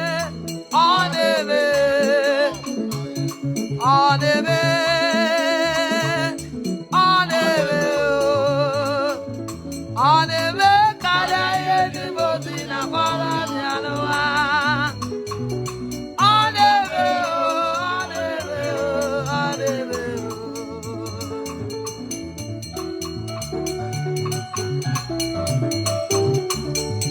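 Worship music: a solo voice sings long, drawn-out phrases with vibrato over steady instrumental backing. The singing stops about 20 seconds in, leaving the accompaniment playing on.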